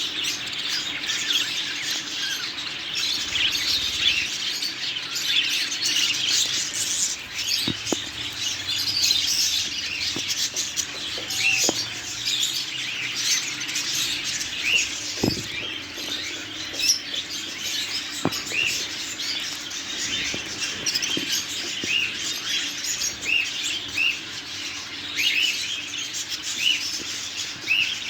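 Many small caged birds chirping and twittering all together without a break, with a few sharp clicks now and then.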